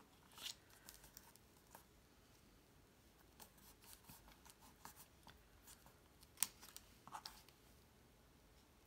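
Faint rustling and light ticks of white cardstock being pressed down and handled on a cutting mat, with one sharper click about six seconds in.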